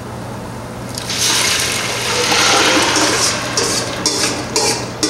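Crushed tomatoes poured from a stainless steel bowl into a pot of hot garlic and olive oil: a rushing hiss starts about a second in as they land in the oil, then breaks into short scraping strokes near the end as the last of the tomatoes are scraped out of the bowl.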